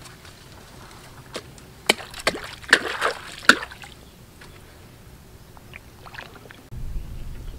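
Wooden canoe being pushed through mangrove branches: a cluster of sharp knocks and cracks with rustling leaves and some water sloshing, loudest in the middle. A low steady rumble sets in suddenly near the end.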